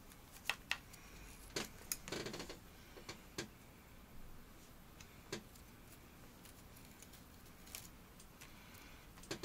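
Bonsai pruning scissors snipping small Korean hornbeam twigs: faint, sharp clicks, several in the first three seconds or so, then single snips spaced a few seconds apart.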